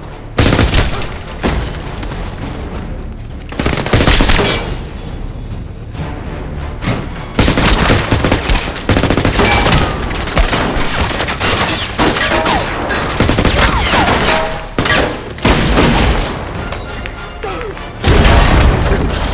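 Action-film gunfire sound effects: single heavy shots, then a long stretch of rapid volleys of fire, with another loud burst near the end, over a music score.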